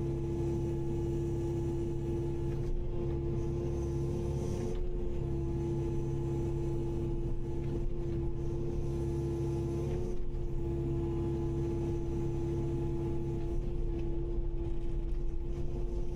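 Kubota KX080-5 excavator's diesel engine and hydraulics running steadily under work, a constant drone with a steady hum.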